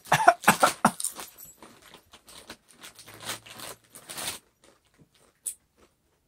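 Potato chips crunching as they are eaten, with a loud burst of crackling in the first second. A foil chip bag crinkles as a hand reaches into it around the fourth second.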